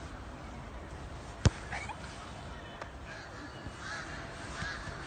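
A football kicked on a grass pitch: one sharp thud about a second and a half in, over a steady outdoor background. Faint wavering calls follow near the end.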